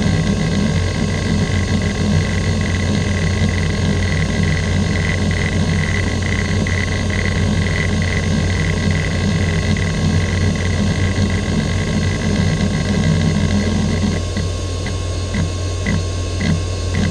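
Western Digital Caviar 205AA IDE hard drive spinning with a steady hum while its heads seek rapidly back and forth in sweeping patterns driven by the hdmotion seek-test program, a dense continuous seek chatter. About three seconds before the end the seeking changes to separate clicks, two or three a second.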